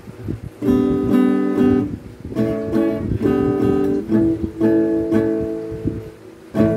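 Acoustic guitar strummed through its newly fitted pickup and a small portable amplifier. It plays a run of chords, changing every second or so, with short breaks about two seconds in and near the end.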